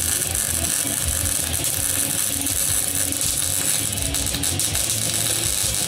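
MIG welder arc crackling steadily as a weld is run along thin mild steel tube.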